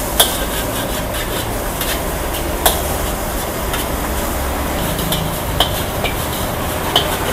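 Metal ladle stirring and scraping noodles and greens in a hot steel wok, over a steady sizzle. Several sharp clanks of the ladle striking the wok.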